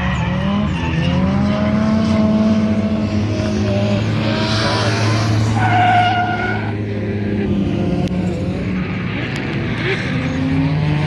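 Drift car engine held high in the revs and varying with the throttle while the tyres screech through a slide, with a sharp tyre squeal about six seconds in.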